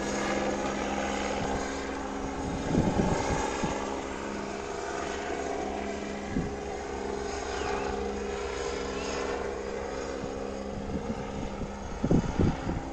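Emergency helicopter flying overhead: a steady drone of rotor and turbine with several held tones. A few short low thumps come about three seconds in and again near the end.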